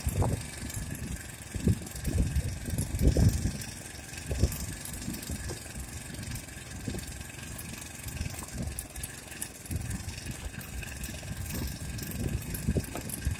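Small engine of a motorized bicycle running, with an irregular low rumble and uneven thumps, the loudest about three seconds in.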